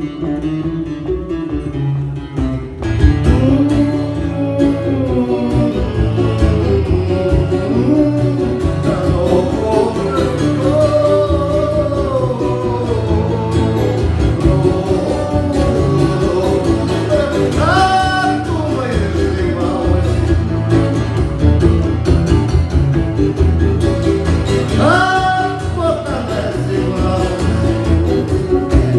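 Live male vocal with acoustic guitar: a song sung in Russian over strummed and plucked guitar. The guitar plays alone at first, and the voice comes in about three seconds in.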